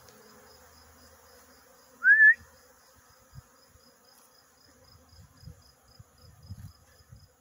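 Honeybees swarming around stacked honey supers, a faint steady buzz. About two seconds in, a single short, loud whistle-like note rises in pitch, and a few soft low thumps follow in the second half.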